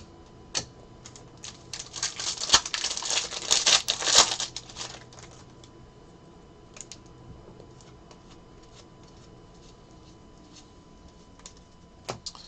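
Trading cards and plastic card sleeves being handled: quick clicking and crinkling for about three seconds, then a few scattered light clicks.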